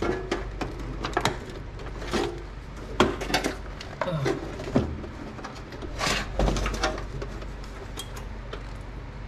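Hands working inside a desktop PC, making a series of irregular clicks and knocks of plastic and metal parts as a memory module is handled at its slots, over a steady low hum.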